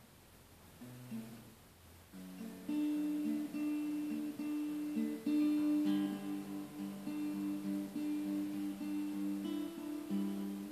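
Acoustic guitar played by hand: a few notes about a second in, then from about two seconds a steady, repeating pattern of picked chords.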